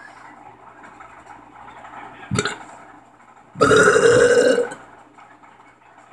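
A boy burping: a short sharp noise a little over two seconds in, then a loud, drawn-out burp lasting about a second.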